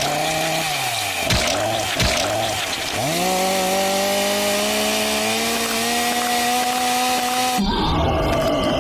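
Chainsaw engine sound effect: the pitch dips twice, then revs up and holds high. It cuts off abruptly near the end.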